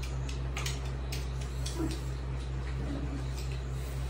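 People eating sour lemon slices: faint clicks and mouth smacks over a steady low hum, with two brief murmured sounds near the middle.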